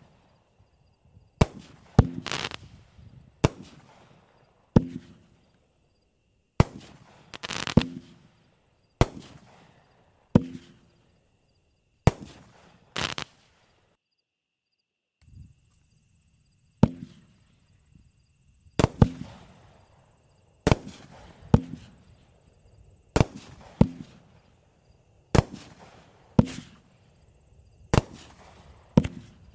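200-gram consumer fireworks repeater cakes firing shot after shot, roughly one to two sharp bangs a second, some trailing off in a hiss. About halfway through the shots stop for a second or two as one cake burns out, then the next cake starts firing.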